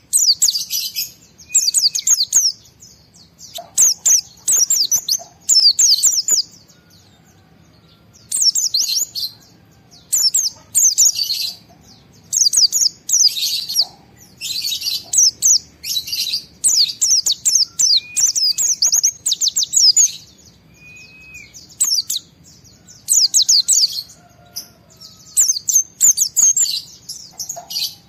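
A white-eye (pleci) singing. Short bursts of rapid, high twittering notes come every second or two, with a brief lower slurred whistle a few times.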